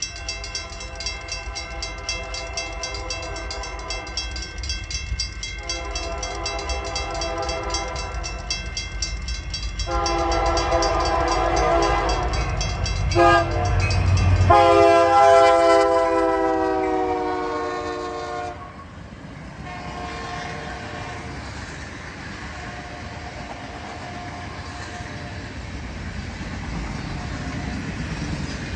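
Union Pacific freight train led by an EMD SD70M, its air horn sounding a series of long blasts with a short one before a final long blast. The horn is loudest and drops in pitch as the locomotive passes about halfway through. Then the freight cars roll by, wheels clacking over the rail joints.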